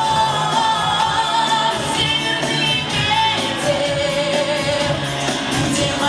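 A woman singing a pop song with accompaniment, holding long sustained notes: one high note for the first half, then a lower one.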